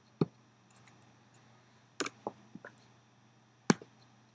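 Computer mouse clicking: a sharp click just after the start, a short run of clicks about two seconds in, and another sharp click near the end, over a faint steady hum.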